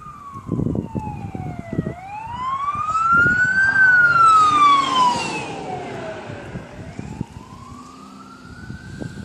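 A wailing siren whose pitch slowly rises and falls, peaking about four seconds in and again near the end, with irregular low knocking underneath.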